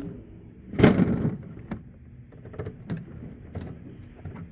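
A single loud bang about a second in, followed by a few lighter knocks and clicks.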